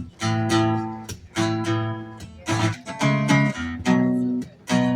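Acoustic guitar strumming chords in a steady rhythm, each strum ringing out briefly before the next.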